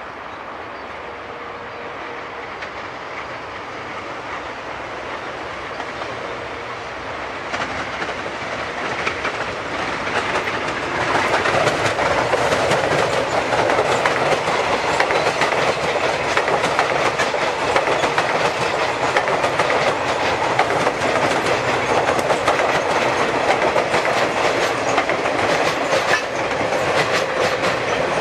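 Electric commuter train approaching and running past, its wheels clicking rapidly over the rail joints. It grows louder over the first ten seconds or so, then stays loud and steady as the coaches roll by.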